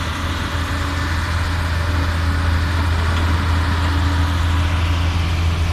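Heavy diesel engines of a crawler excavator and a dump truck running, a steady low drone.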